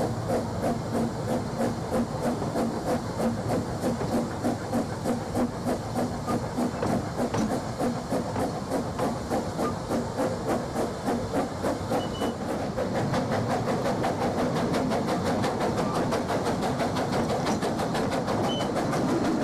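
A 16mm-scale model garden railway locomotive running on its track, heard as a hiss that beats regularly about three times a second, evening out into a steadier, slightly louder hiss about two-thirds of the way through.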